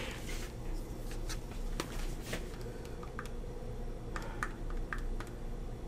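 Steady low room hum with scattered light clicks and taps, small objects being handled between sentences.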